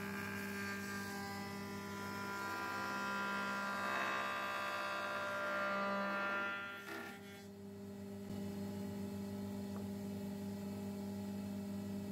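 Electric motor humming steadily, a low even hum that holds the same pitch throughout. About seven seconds in it dips briefly, then carries on.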